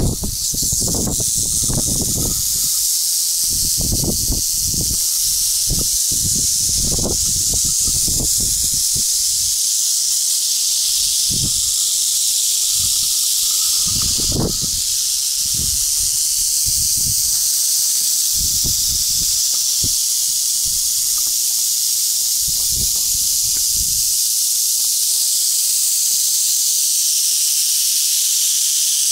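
Many prairie rattlesnakes in a den rattling their tails together, a loud, steady, high-pitched buzz with no break, the warning of snakes disturbed at close range. Low thumps and rumbles on the microphone come and go beneath it.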